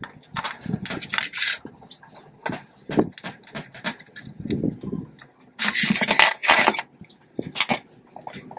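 Hand screwdriver working screws out of a subwoofer's metal amplifier plate, a run of small clicks and scrapes. About six seconds in, a louder stretch of rattling and scraping as the metal plate and its boards are handled.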